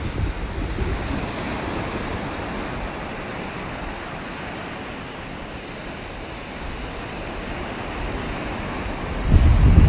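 Ocean surf washing on the beach, a steady rush of noise. About nine seconds in, wind starts buffeting the microphone with a loud low rumble.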